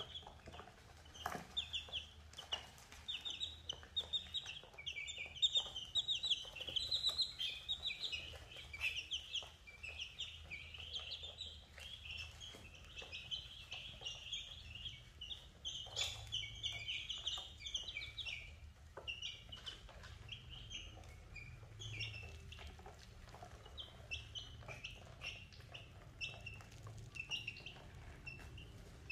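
A flock of baby chicks and ducklings peeping: many short, high cheeps overlapping in a busy chorus that thins out over the last third. Scattered light taps come from beaks pecking feed on a plastic tray.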